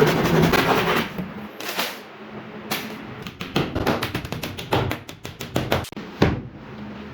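A fast run of sharp clicks and knocks, then a scattered, uneven series of clicks and taps from work on wood panels, ending in a louder knock.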